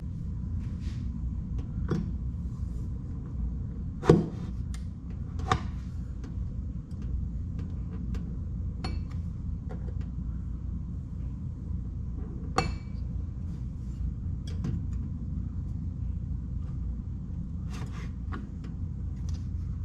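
Scattered small clicks and knocks of hard plastic and metal parts being handled while a microwave door is taken apart, the sharpest knock about four seconds in, over a steady low hum.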